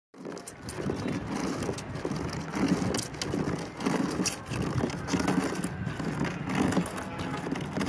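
Dolerite stone ball rubbed by hand against granite, grinding in repeated back-and-forth strokes with a gritty scraping and small clicks of stone on stone.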